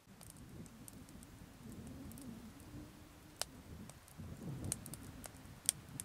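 Wood fire crackling in an open-door wood stove: scattered sharp pops and snaps over a low rumble of burning flames, with two louder pops, one about halfway and one near the end.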